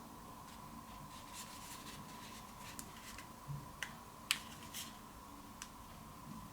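Quiet room tone with a faint steady high-pitched hum, broken by a handful of small, soft clicks and taps, the loudest about four seconds in.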